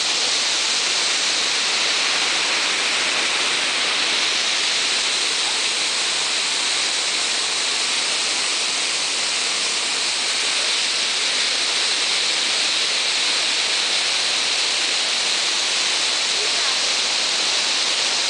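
Waterfall rushing: a loud, steady hiss of falling water that holds even throughout.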